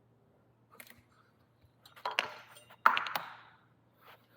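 Motorcycle front-wheel axle being slid out of the hub: metal clinks and scraping, a faint click about a second in, then two clusters of clinks about two and three seconds in, the second loudest.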